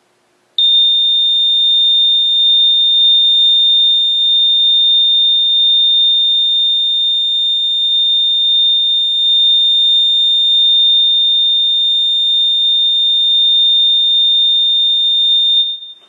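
Gentex GX93-R 24 V DC fire alarm horn sounding its steady tone: one continuous, high-pitched tone that starts about half a second in and stops near the end.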